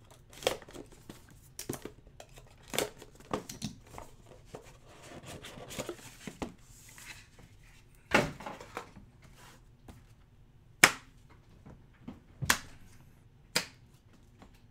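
Wrapping being torn off a cardboard trading-card box and the box being opened and handled: crinkling, tearing and small clicks, with a few sharp knocks in the second half.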